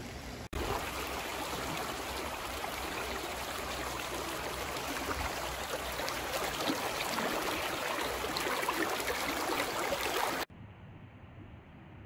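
Mountain creek water rushing and splashing over rocks: a steady, dense rush that cuts off suddenly near the end, leaving only a faint hiss.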